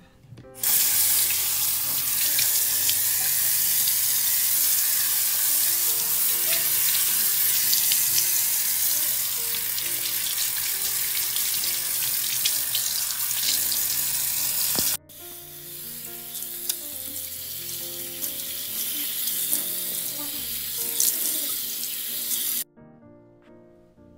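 Bathroom tap running into a sink while a face mask is rinsed off, with water splashing. The flow starts suddenly about half a second in, turns quieter with scattered splashes about 15 seconds in, and cuts off about 22 seconds in.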